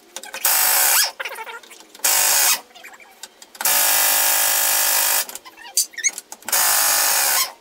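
Pneumatic impact wrench removing the rear wheel's lug bolts on a 1987 VW Vanagon: four bursts of hammering, the third the longest at over a second, with small rattles of the bolts and wrench between them.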